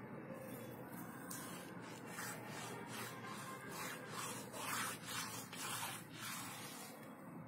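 Fingers rubbing across a rough, wet cement surface coated with waterproofing, in a run of short scratchy strokes about two a second, starting a second or so in and dying away near the end.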